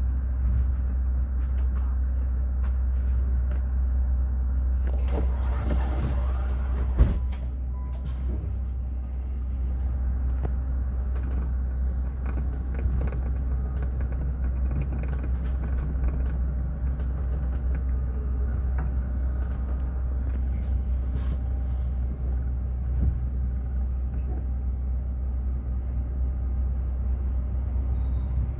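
Mercedes-Benz eCitaro electric bus in motion: a steady low rumble. A short whine glides in pitch about five seconds in, and a single sharp knock comes about seven seconds in.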